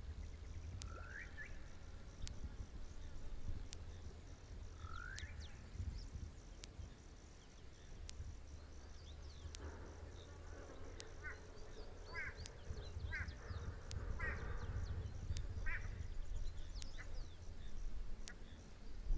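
Wild birds calling: a couple of short rising chirps, then a run of short repeated calls about halfway through. Underneath are a steady low rumble and a faint, high, steady insect drone.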